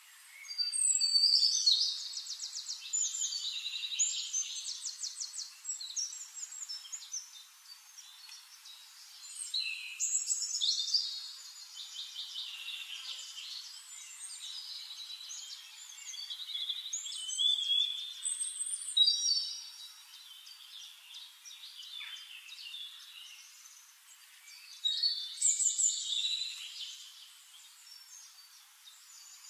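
Songbirds singing in bursts of rapid trills and chirps, with quieter lulls between the bursts.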